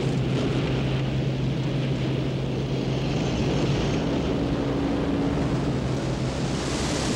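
Deep, steady rumbling drone of a science-fiction sound effect from an animated film soundtrack, with a low hum underneath. A higher tone sounds briefly in the middle, and a rushing hiss builds near the end.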